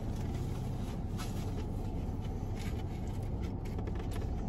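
Steady low hum of a car cabin, with faint scattered clicks and scrapes of a plastic fork on a takeout plate while eating.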